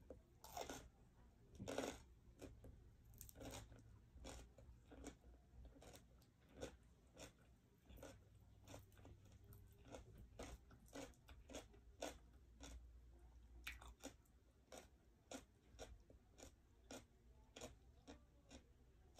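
Close-miked eating sounds: chewing and mouth-smacking on grilled chicken and steamed cabbage eaten by hand. A run of soft, short, wet clicks a few times a second, loudest in the first two seconds.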